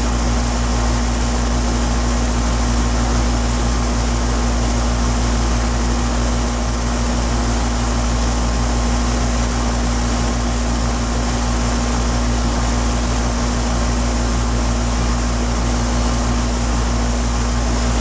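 Payne 4-ton central air conditioner condensing unit running steadily: Copeland scroll compressor and GE condenser fan motor giving a constant low hum with a steady whoosh.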